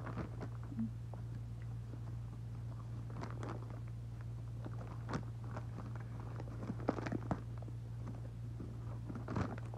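Dry cornstarch being chewed: scattered, irregular soft crunches and clicks, over a steady low hum.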